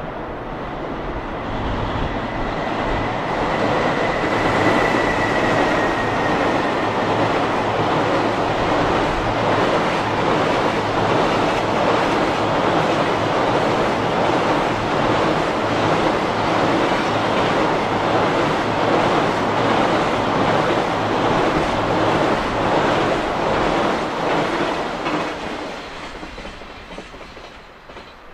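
A JR Freight container train hauled by an EF210 electric locomotive crossing a steel girder bridge at speed: a loud, steady rumble with a rhythmic clatter of wagon wheels over the rails, building over the first few seconds and dying away near the end. A faint high tone sounds a few seconds in, sliding slightly down in pitch.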